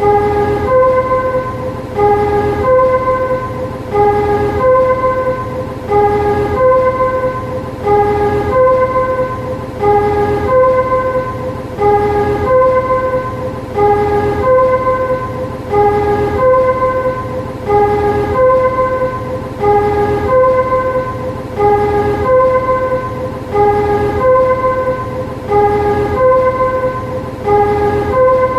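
Warning chime of a railway depot shunting vehicle: a two-note electronic chime, low note then higher note, repeating about every 1.25 s, over the steady hum of its engine.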